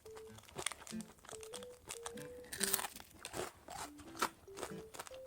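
Crispy fried chicken crunching as it is bitten and chewed, in repeated sharp crackles with a couple of louder crunches.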